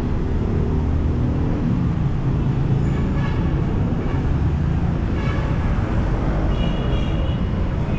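Steady traffic noise of a busy city street: a continuous low rumble of passing motor vehicles.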